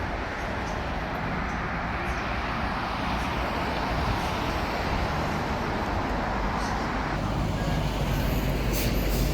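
Modern tram running between stops, heard from inside the car: a steady rolling rumble and hiss of wheels on rail and drive noise.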